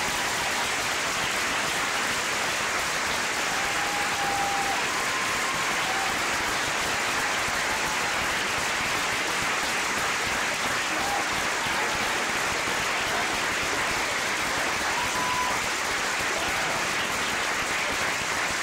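Audience applauding: a long, steady round of clapping that holds an even level throughout.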